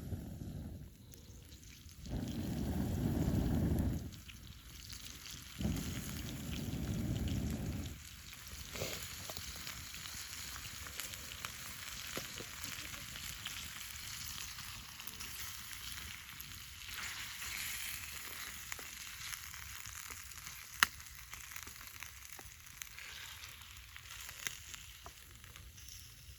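Food sizzling in a pan over a campfire: a steady hiss with small crackling pops and one sharper pop about 21 seconds in. Two stretches of low rumble come within the first eight seconds.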